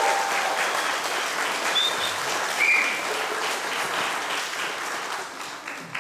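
Congregation clapping and applauding, the applause dying away near the end.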